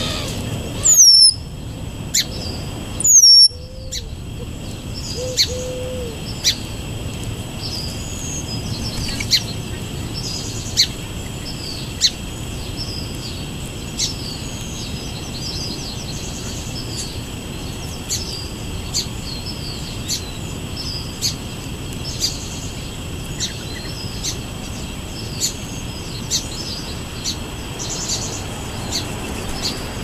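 Small birds calling: two loud, thin high whistles sliding down in pitch about one and three seconds in, then short high chirps repeating roughly once a second.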